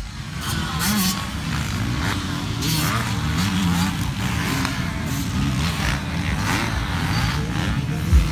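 Several motocross dirt bike engines running at race speed, their pitch rising and falling as the riders work the throttles.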